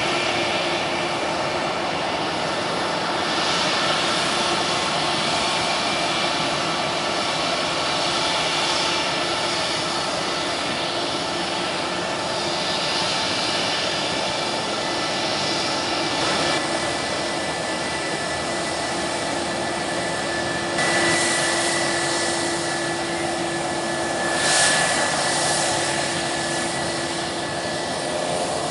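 Airbus A319 jet engines at taxi power: a steady rushing whine. The whine grows stronger and sharper about two-thirds of the way through.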